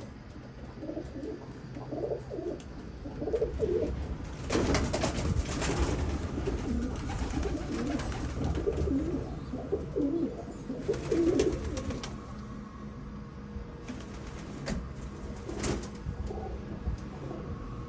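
Birmingham roller pigeons cooing, many short low calls one after another, with a burst of noise about five seconds in and a couple of sharp clicks later on.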